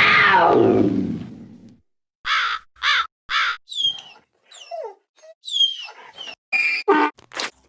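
A run of separate stock cartoon sound effects. It opens with a loud falling tone lasting over a second, followed by three crow caws and then a few chirping bird calls with quick downward sweeps and several short clipped snippets.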